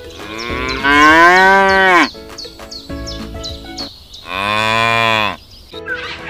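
Cow mooing twice, two long calls of about a second each that rise and then fall in pitch.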